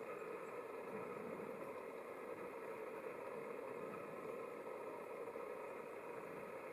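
A steady, unchanging mechanical hum, like a small motor running.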